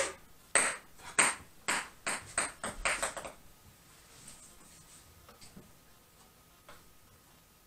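Ping pong ball bouncing on a hardwood floor: about ten sharp ticks coming faster and faster and dying away over about three seconds, then one faint tick a few seconds later.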